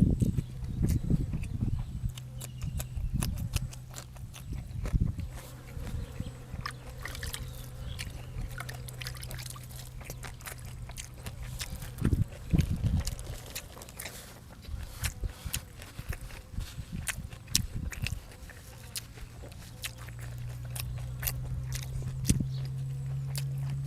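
A person eating close to the microphone: chewing and mouth smacking with many small sharp clicks, over a steady low hum that grows louder near the end.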